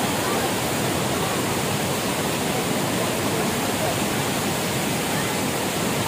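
Steady, unbroken rush of a waterfall swollen with monsoon rain, its muddy floodwater pouring over flat rock slabs.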